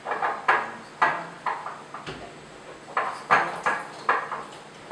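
Utensil clinking against a bowl in about a dozen quick, uneven knocks as frog legs are turned in egg white.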